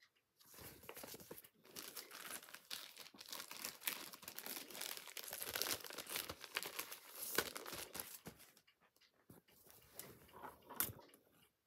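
Crinkling and rustling from a cross-stitch project being handled, dense for about eight seconds, then sparser, with a sharper crackle near the end.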